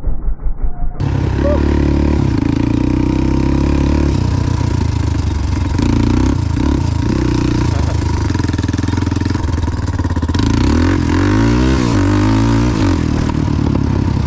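Big-bored Honda 400EX single-cylinder four-stroke engine running under way as the quad is ridden, its revs stepping up and down, with a rise and fall in pitch near the end.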